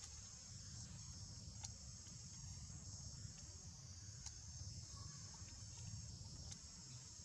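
Faint, steady chorus of insects buzzing, with a low rumble underneath and a few faint clicks about one and a half, four and six and a half seconds in.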